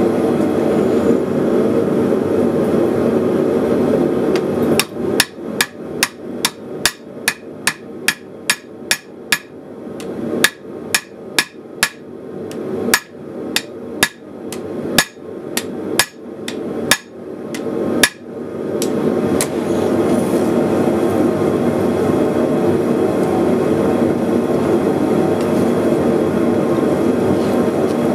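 Hand hammer striking hot steel on an anvil over a hardy cut-off tool: a quick run of ringing blows, two to three a second, starting about five seconds in and stopping about eighteen seconds in. A steady rushing noise fills the stretches before and after the blows.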